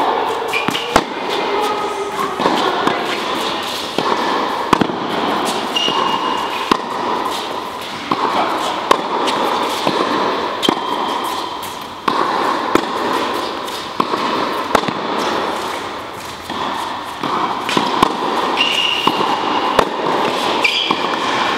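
Tennis ball struck by a racket in a rally on an indoor hall court, a sharp hit every two or three seconds over a steady background din, with short high squeaks now and then.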